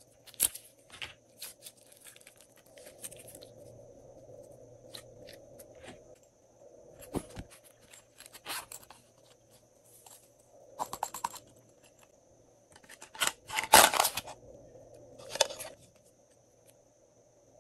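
Hands working glossy slime and plastic slime containers: scattered sticky clicks, taps and crackles with quiet gaps between them. A denser, louder run of crackling comes about three-quarters of the way through.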